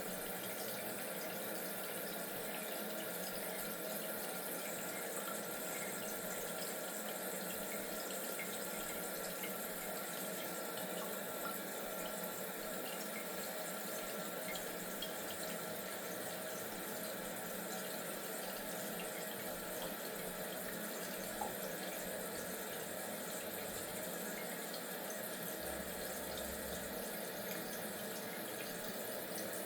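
Toilet tank refilling through a newly installed fill valve: a steady hiss of water running in. The flow is slow because the main water supply is only opened a small amount.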